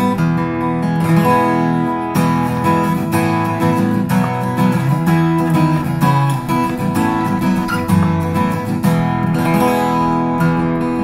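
Aria W-20D dreadnought acoustic guitar being strummed and picked, a steady run of chords ringing out.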